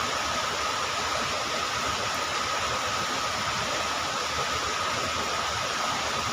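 Swollen river in sudden flood, its water rushing in a steady, unbroken roar of noise. A thin steady high tone sits over the rush.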